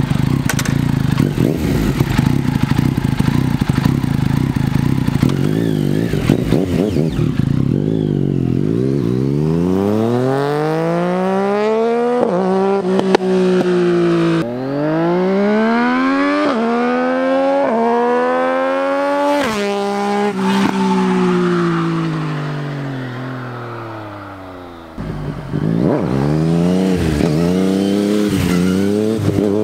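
Yamaha MT motorcycle engine running, then accelerating hard, its pitch climbing and dropping sharply at each of several gear changes as it pulls away and fades into the distance. About 25 seconds in, the engine is loud again, revving up and down in quick rises as the bike wheelies past.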